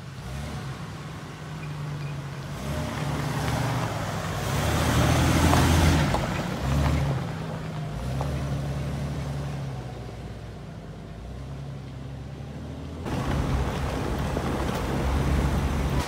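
Jeep Grand Cherokee WJ running along a dirt road, its engine hum mixed with tyre and road noise, swelling to its loudest about five to six seconds in as it passes close. The sound changes abruptly about thirteen seconds in, coming back up.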